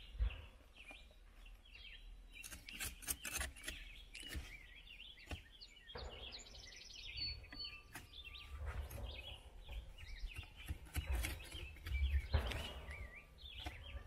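Metal spatula scraping and clicking on the clay oven's floor as it is worked under zucchini burgers that stick, a few sharp knocks at a time, with the louder knocks near the end. Small birds chirp throughout.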